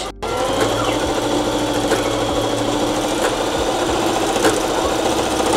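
Domestic sewing machine running steadily, zigzag-stitching across the overlapped ends of a waistband elastic. The motor speeds up just after the start and runs on until near the end.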